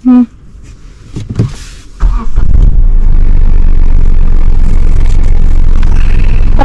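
A brief voice at the start, then from about two seconds in a car driving, a loud steady low rumble of engine and road noise.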